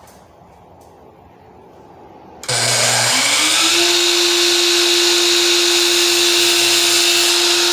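Electric miter saw switched on about two and a half seconds in, spinning up within a second to a steady, loud whine and running at full speed as it cuts a 22.5-degree miter in crown molding.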